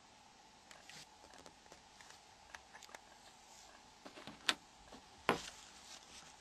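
Faint scattered small clicks and taps, with two sharper clicks about four and a half and five and a half seconds in.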